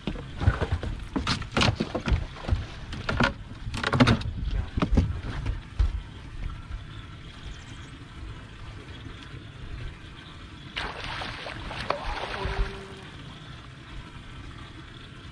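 Knocks and thumps on a bass boat's deck as an angler moves forward and kneels with a landing net. A brief rushing splash comes about eleven seconds in, while the hooked bass is brought to the net.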